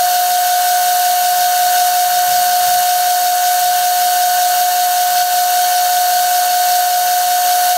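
Old metal-turning lathe running with its spindle spinning during a light finishing cut on a shaft, giving a steady high-pitched whine over a constant hiss.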